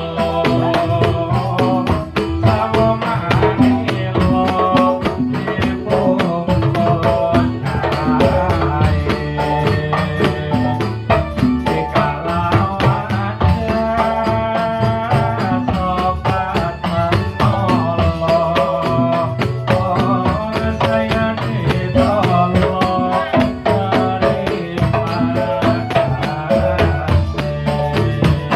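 Dolalak music: Javanese frame drums and percussion keep a steady, even beat under a wavering melody line.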